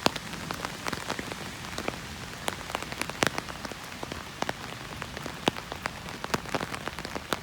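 Rain falling steadily and hard: a dense patter with many sharp, separate drop hits.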